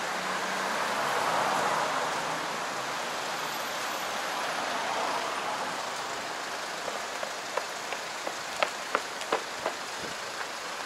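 Steady outdoor street noise, a rushing hiss that swells and fades twice, with a quick run of sharp clicks, about three a second, in the last few seconds.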